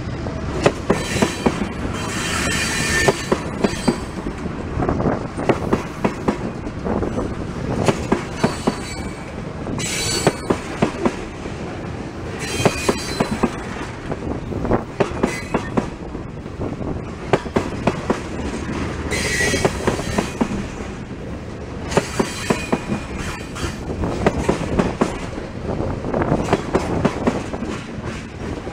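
Loaded railroad tank cars rolling past at close range: the wheels clack over the rail joints in regular clusters of quick clicks every couple of seconds over a steady rumble. A high wheel squeal rises and fades several times.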